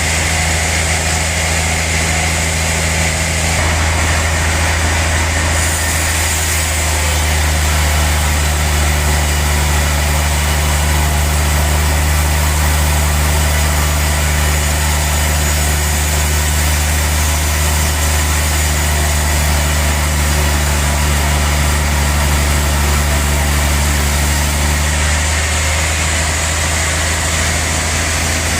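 Large sawmill saw running as it cuts a big log, with a loud, steady low machine hum. Its tone changes a few seconds in and again near the end.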